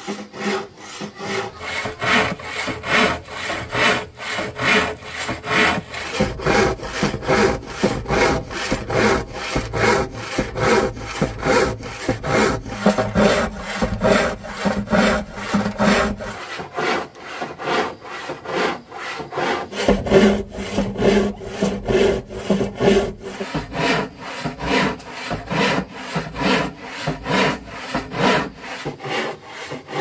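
Hand saw cutting through wood in steady back-and-forth strokes, about two to three a second.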